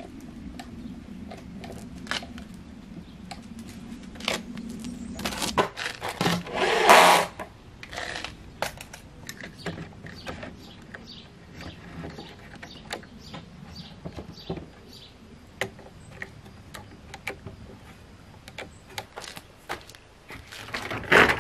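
Scattered knocks and clicks of timber battens, clamps and hand tools being handled while a small wooden shed frame is assembled, over a low steady hum that stops after about five seconds. About seven seconds in comes a short loud burst of noise, the loudest sound, and near the end a second burst as a sheet of corrugated plastic is handled.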